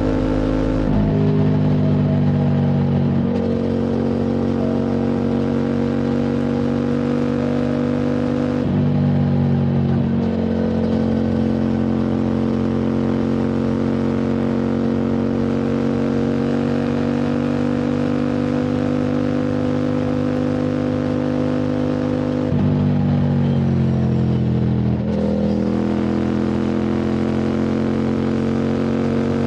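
QJ Motors SVT650X's parallel-twin engine through an Arrow Racetech slip-on exhaust, pulling at steady road revs with the pitch creeping slowly upward. The revs dip briefly several times as the throttle is eased or a gear is changed, the longest dip coming near the end before the engine pulls again.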